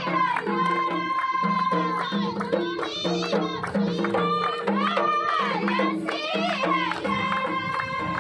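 Tashelhit (Amazigh) folk music with singing and percussion, the melody moving in steps through held notes.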